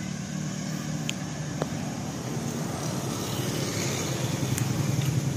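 Hino FM 260 JD dump truck's diesel engine running at low revs, a steady low drone that grows a little louder near the end.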